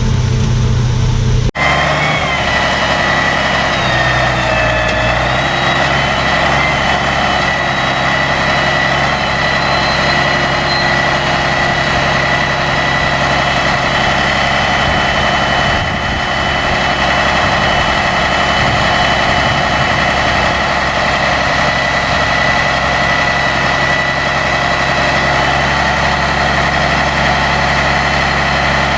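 Harvest machinery engine running steadily with a high, even whine over it. The sound changes abruptly about a second and a half in.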